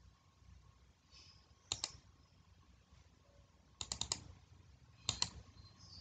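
Sharp clicks of a computer mouse and keyboard: a close pair about two seconds in, a quick run of four or five near four seconds, and two more around five seconds.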